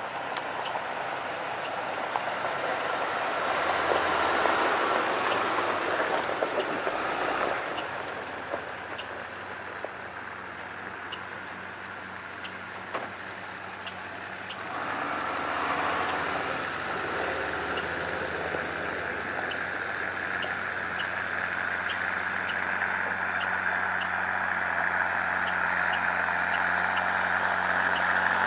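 Large farm-type tractor's diesel engine working hard under load while towing a heavy skid building up a steep hill. It grows louder in the second half as the rig comes closer.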